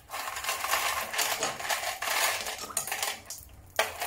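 Ice cubes sliding out of a plastic ice tray and clattering into a plastic tub of brine: a quick run of clinks and knocks for about three seconds. A second short clatter starts near the end.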